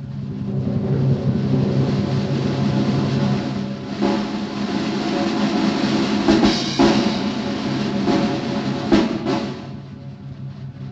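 Dramatic drum roll swelling in loudness, with accented strikes about four, six and a half, and nine seconds in, then dropping back to a softer roll near the end.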